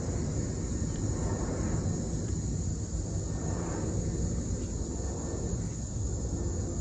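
Jet airliner flying high overhead, a steady, distant low rumble of its engines.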